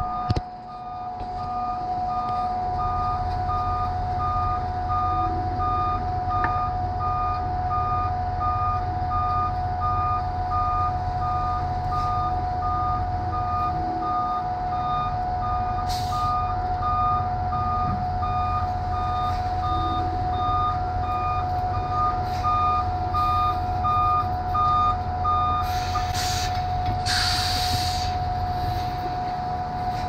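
Concrete mixer truck reversing: its backup alarm beeps at an even pace over the low running of its diesel engine and a steady whine. The beeping stops about four seconds before the end, followed by a hiss of air brakes as the truck stops.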